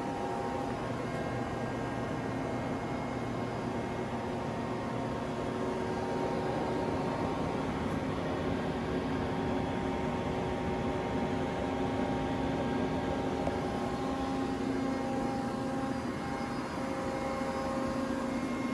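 Haas SL-40T CNC lathe powered up and idling: a steady mechanical hum and whir with a few faint steady tones, from its motors and fans.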